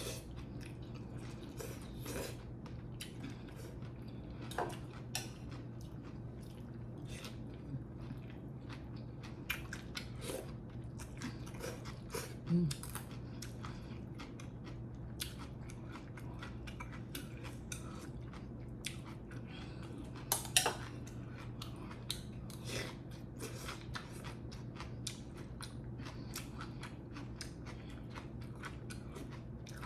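Close-miked chewing and eating sounds, with many small clicks and taps of cutlery on dishes over a steady low hum; a louder clatter about twenty seconds in.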